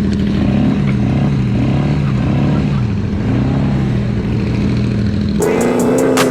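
ATV engines running during a ride, one holding a steady pitch while another rises and falls as its throttle changes. Near the end the engine sound changes abruptly to a higher, steadier pitch with a few sharp clicks.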